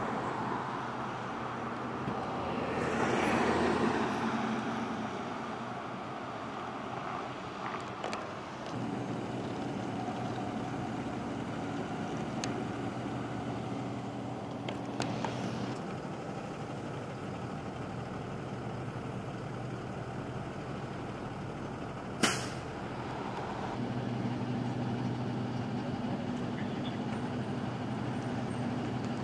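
Roadside vehicle sound: a vehicle passes about three seconds in, then an engine idles steadily, dropping out for a while in the middle and returning near the end, with a single sharp knock a little after twenty seconds.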